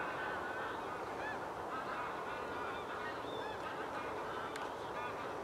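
Birds calling: short, repeated honking calls over a steady background hiss.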